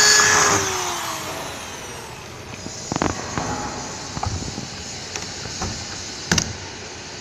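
Electric hand drill whining as it finishes a hole through a steel window frame into a sandwich wall panel, its pitch falling as it spins down in the first second or so. Then a long-handled lever rivet gun clicks several times while setting blind rivets in the frame, with the sharpest click near the end.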